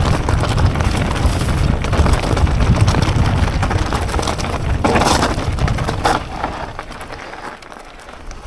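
Mondraker Crafty electric mountain bike ridden over rocky ground, heard from an onboard action camera: wind rumble on the microphone, with tyres crunching and the bike rattling. There is a brief louder burst of noise about five seconds in, and the noise dies down over the last couple of seconds.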